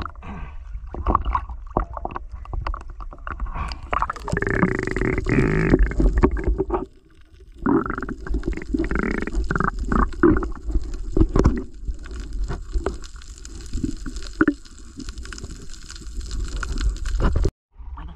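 Water sloshing and gurgling around a diver's camera at and below the surface, with a constant low rumble and many small knocks and clicks as the camera and catch bag are handled. The sound cuts out suddenly near the end.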